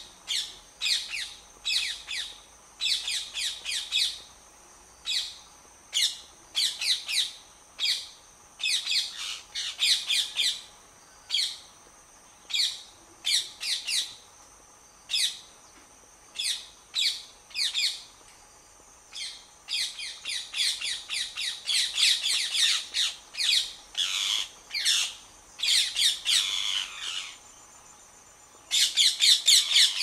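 A flock of parrots calling: shrill screeches repeated in quick clusters, with short lulls between bursts and a dense, loud burst near the end.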